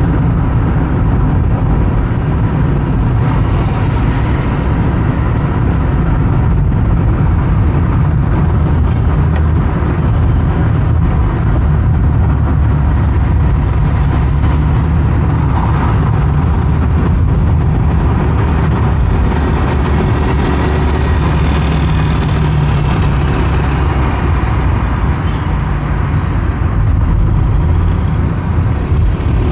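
A car driving at speed on a highway: a steady low rumble of engine and road noise with the hiss of passing traffic.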